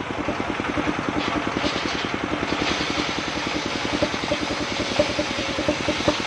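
Single-cylinder diesel engine driving a circular sawmill, running steadily with a rapid, even chugging. A faint hiss, the blade in the mahogany, comes and goes about one to three seconds in.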